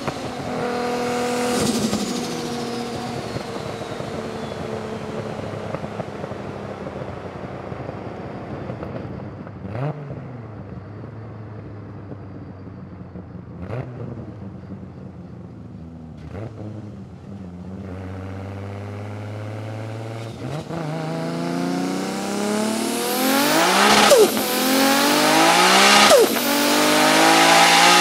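Built RB32/26 straight-six of an 1,100 hp R34 Skyline GT-R with a big Garrett turbo, heard from inside the cabin: revs fall away and the engine runs at low load for a long stretch, with three short sharp cracks. In the last third it goes to a full-throttle pull, revs climbing loudly and dropping back at two gear changes.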